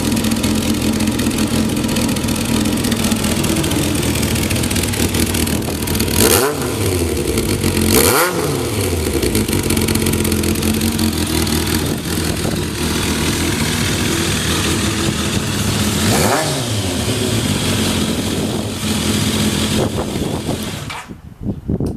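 Kawasaki GPZ1100's air-cooled inline-four engine idling steadily, blipped three times so the revs rise and fall back, then cut off near the end. The idle is stable with no abnormal noise, a sign of a healthy engine.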